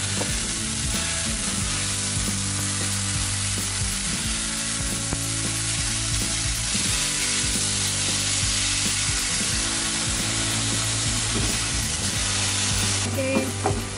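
Minced meat sizzling steadily in a hot frying pan just after a splash of sake, broken up and stirred with a spatula.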